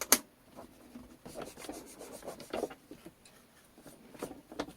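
Handling noise as radio parts are fitted back together: a sharp click right at the start, then scattered light taps and rubbing.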